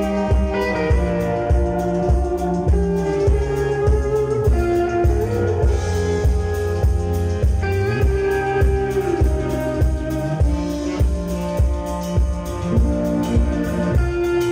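Live electric blues band playing: electric guitar and electric bass over a drum kit keeping a steady beat, with a few bent, sliding guitar notes midway.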